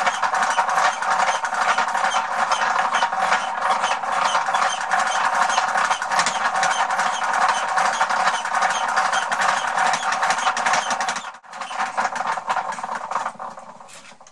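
Hand chisel cutting a spinning wooden workpiece on a foot-treadle wooden lathe, heard as a dense, rapid scraping clatter mixed with the rattle of the lathe's wooden gears. It breaks off for a moment about eleven seconds in, then dies down near the end as the chisel comes off the wood.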